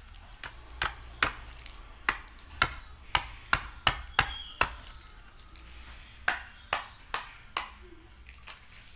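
Sharp plastic taps and knocks, about a dozen in two quick irregular runs, from a drinking straw and a sealed plastic drink cup being handled and knocked together.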